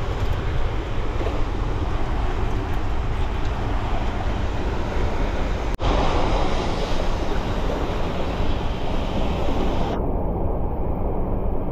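Steady rush of the power plant's warm-water outflow current, with wind on the microphone and a low rumble underneath. The sound cuts out for an instant about six seconds in and turns duller near the end.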